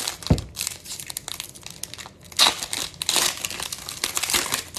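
Foil wrapper of a Bowman Platinum baseball card pack crinkling and tearing as it is handled and opened by hand, in uneven bursts, with a dull thump just after the start.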